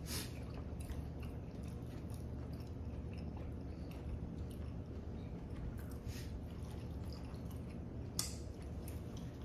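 Close-miked chewing and eating sounds from a seafood boil in butter sauce: scattered wet smacks and soft clicks over a steady low hum, with one sharper click about eight seconds in.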